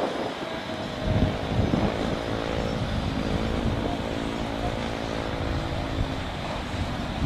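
Jet engines of a twin-engine wide-body airliner at takeoff thrust as it rotates and lifts off: a steady rushing noise with a low rumble. A held engine drone runs through the middle of the clip.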